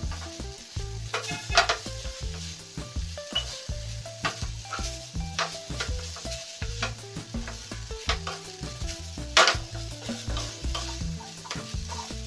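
Wooden spatula stirring and tossing vegetable fried rice in a frying pan on a lit gas flame, with a soft sizzle and irregular scrapes and taps of the spatula against the pan.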